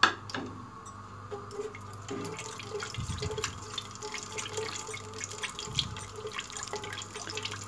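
Sliced cashews and almonds sizzling and crackling in hot ghee as they roast, stirred with a spatula, with a sharp click right at the start.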